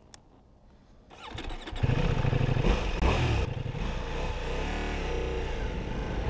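Motorcycle engine running as the bike rides along a dirt road, fading in about a second in; near the end its revs dip and rise again.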